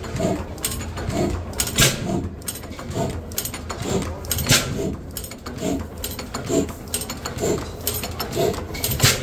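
Crossley Type S suction gas engine running slowly: a regular low beat a little under once a second, with three sharp bangs spaced a few seconds apart.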